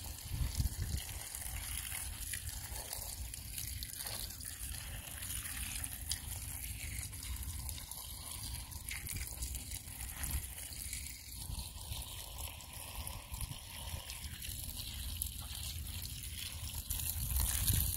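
Garden hose running water into a stainless steel bowl of freshly harvested spinach leaves, rinsing them: a steady sound of running, splashing water.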